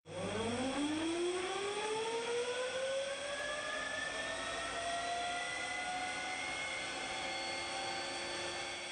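Jet engine on a heat-exchanger (pre-cooler) test rig spinning up. It gives a whine that rises steeply in pitch over the first few seconds, then levels into a steady high whine over a rush of airflow.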